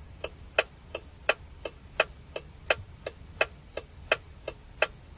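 Clock ticking sound effect: an even tick about three times a second, marking a passage of time.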